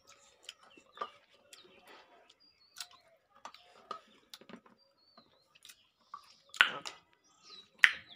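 Mouth sounds of a person eating chilli-spiced mashed jujubes: chewing, lip smacks and small clicks, with two louder sharp mouth noises near the end. Small birds chirp now and then in the background.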